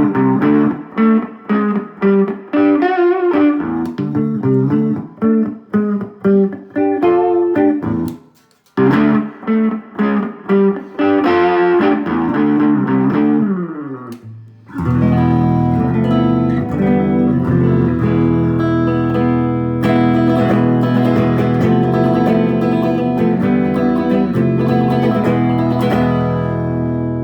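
Electric guitar played through a Mesa/Boogie TA-30 valve amplifier. Picked single notes and arpeggios come first, with a short break about eight seconds in and a falling run near the middle. About halfway through, it switches to long, sustained chords that ring on to the end.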